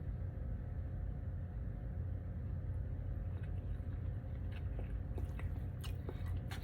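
Quiet chewing of a mouthful of cornbread dressing with gravy, with a few faint clicks near the end, over a steady low hum.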